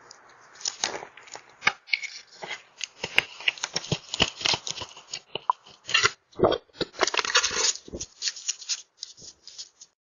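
Hands grabbing, scraping and knocking on a Ring video doorbell, picked up close on the doorbell's own microphone as someone tries to pull it off its mount: a run of irregular scratches, clicks and taps.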